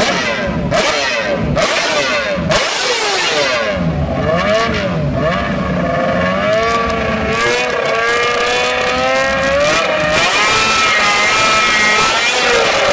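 Sport motorcycle engine revved up and down several times with sharp cracks, then climbing and held at steady high revs through the second half.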